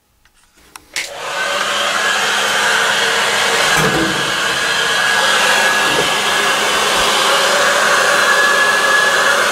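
Black & Decker heat gun switched on with a click about a second in, then running steadily, its fan blowing hot air with a faint steady whine as it heats a Perspex sheet for bending.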